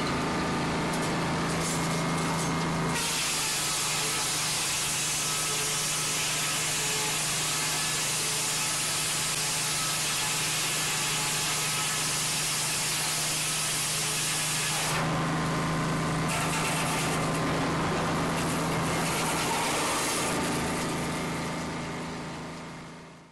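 Chainsaw running at a steady high speed while cutting wood, with a harsh hiss of cutting that is heaviest from about three to fifteen seconds in. The sound fades out near the end.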